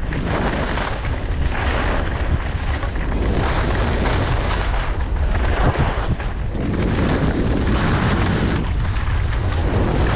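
Wind buffeting the microphone of a skier moving downhill, with a hiss of skis sliding over snow that swells and fades every second or two.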